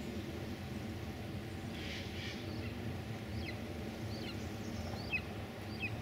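A small bird calling a series of short, falling chirps, about one every second, in the second half, over a steady low rumble.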